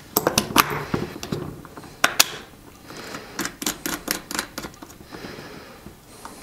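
Hard plastic action-camera mount parts and the GoPro's clear plastic housing clicking and snapping as they are fitted together on the helmet mount: a quick run of sharp clicks at the start, two louder snaps about two seconds in, then scattered clicks.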